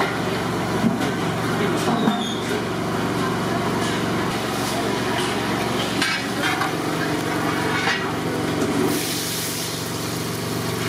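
Steady low machine hum in a busy kitchen, with a few clinks of a metal ladle against a large aluminium pot of heating oil. Near the end a hissing sizzle rises as chopped onions and green chillies go into the hot oil.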